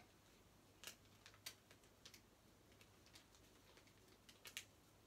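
Near silence: room tone with a faint low hum and a few faint, irregular clicks, a cluster of three near the end.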